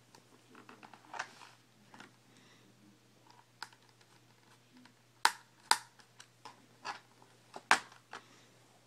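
Small plastic clicks and taps as the memory-bay cover is worked off the plastic underside of a Gateway SA1 laptop, with a few sharper clicks in the second half.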